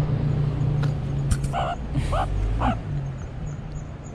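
A small animal giving three short calls about half a second apart, starting about a second and a half in, over a low traffic hum that fades away.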